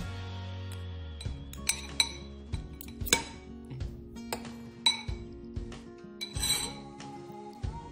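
Metal spoon and fork clinking against a ceramic bowl as a beef meatball is cut apart in broth, several separate sharp clinks. Background music plays underneath.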